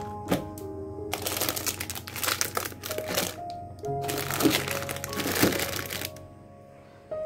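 Crinkling and crackling of grocery packaging being handled, in two stretches of a couple of seconds each, over soft background piano music.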